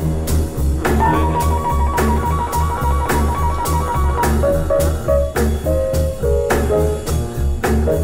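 Jazz-blues piano trio playing an instrumental break: piano lines over a steady walking upright bass and drums, no singing.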